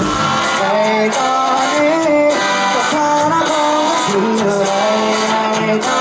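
Live pop-rock band performance: a male lead vocal singing a melodic line over electric guitar and band accompaniment.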